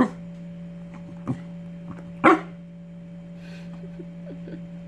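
A dog barking: two loud single barks about two seconds apart, with a quieter short bark between them, over a steady low hum.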